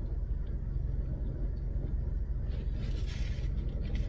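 Steady low hum of a car idling, heard from inside the cabin. From about halfway through, a paper napkin rustles softly.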